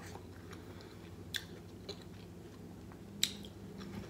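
Close-up chewing of a mouthful of stuffed bell pepper with turkey, vegetable and spaghetti-sauce filling, with two sharp clicks, about a second and a half in and near the end, and a faint steady low hum underneath.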